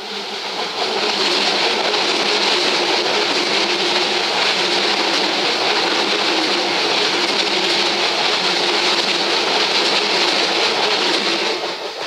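Keisei 3400 series electric train passing close by at speed: loud, steady rolling and rail noise that builds over the first second, holds, and falls away near the end as the last car goes by.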